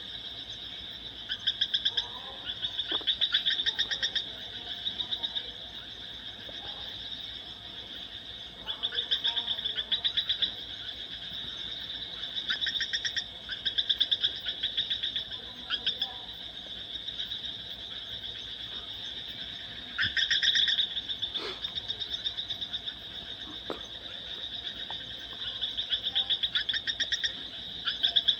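Animal trilling calls: fast pulsed trills, each about a second long, recur every few seconds over a steady high-pitched drone.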